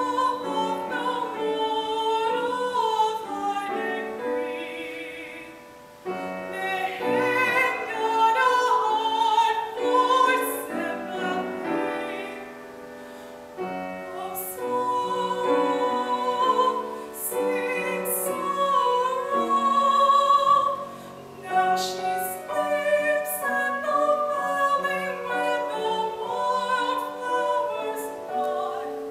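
Solo female voice singing a slow classical art song with vibrato, in phrases with short breaths between them, accompanied by piano.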